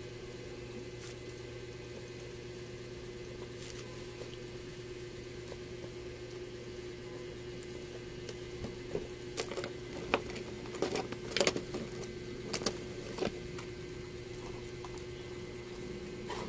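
Pomelo being peeled by hand: the white pith is torn away, with scattered soft crackles and ticks that bunch together in the second half, over a steady low hum.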